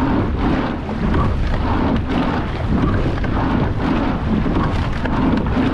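Heavy wind buffeting the microphone of a camera fixed on a moving rowing boat. Under it is a noisy rush of water along the hull and oars working in the water.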